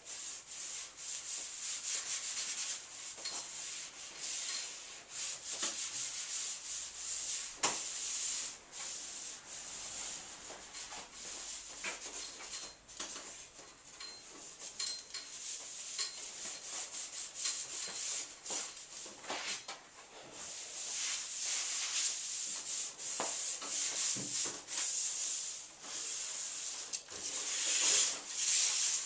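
Tack cloth being wiped over a prepared van body panel to pick up dust before painting, a continuous rubbing hiss in irregular strokes with occasional clicks.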